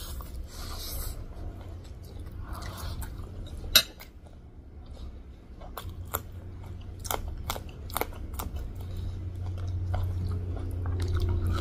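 Two people eating pork chow mein close to the microphone: noodles slurped in near the start, then wet chewing and lip smacks with sharp crunches, one of them as a raw green chilli is bitten.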